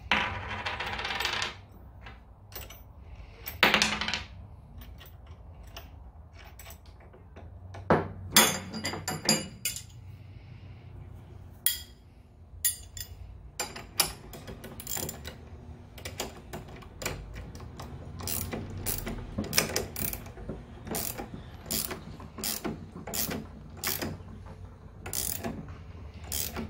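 Ratcheting combination wrench clicking in quick runs as nuts are tightened onto bolts, with a few louder metallic clatters of the wrenches and hardware near the start.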